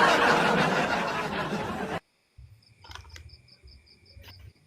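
A loud rushing hiss that cuts off abruptly about two seconds in. After it comes the faint, regular chirping of a cricket, several chirps a second, over a low hum.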